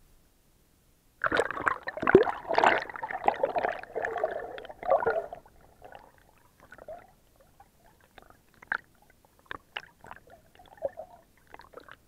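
Water sloshing and gurgling as the camera goes under the surface. There is a dense burst of churning water starting about a second in and lasting about four seconds, then scattered bubbling pops and ticks.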